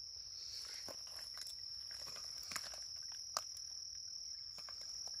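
Steady high-pitched insect chorus, with a few faint scattered clicks and scrapes over it.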